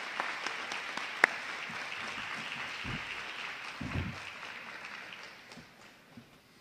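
Audience applauding, fading away over the last second or two. A single sharp click about a second in, and a couple of dull low thumps around the middle.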